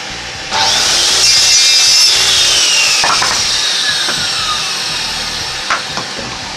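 Circular saw with a 190 mm TCT blade starting suddenly and cutting through a piece of pallet wood with a high whine, then winding down with a falling pitch as it fades.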